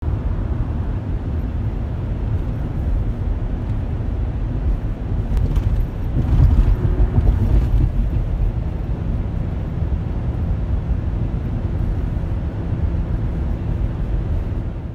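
Steady low rumble of a vehicle running, heard from inside its cabin, swelling a little about six seconds in.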